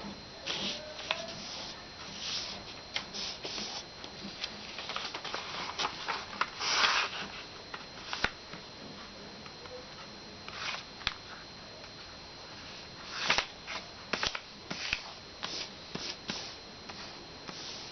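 A sheet of paper being folded and creased by hand: irregular rustles and crinkles, some short and some longer, over a faint steady hiss with a thin high whine.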